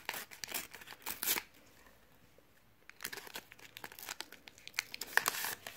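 A Panini Calciatori sticker packet being torn open and its shiny wrapper crinkled by hand: irregular crackles and rips, broken by a pause of about a second and a half partway through.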